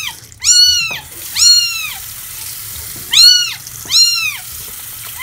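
Two-week-old kitten crying loudly during a flea bath: four high, arching mews about a second apart, each rising and then falling away. They are distress cries at being held wet in the sink.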